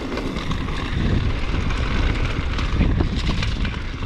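Downhill mountain bike rolling fast over a dirt trail: wind rushing over the microphone, tyres rumbling, and the bike rattling with many short clicks.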